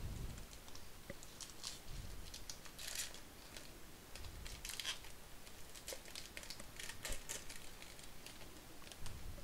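Plastic wrapper of a Topps baseball card pack crinkling and tearing as it is peeled open by hand, in irregular scattered crackles with a few louder rips.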